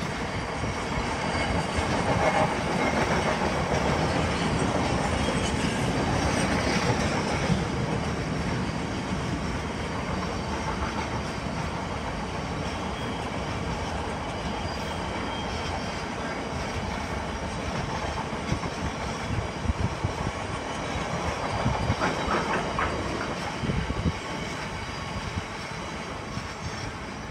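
A freight train of bogie tank wagons rolling past, the wagon wheels clattering over the rail joints. The noise eases near the end as the last wagons clear.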